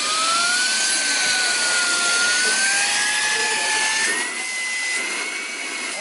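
Panasonic cordless stick vacuum's motor running: a high whine over rushing air. It spins up at the start, then rises a little in pitch about four seconds in as its power increases.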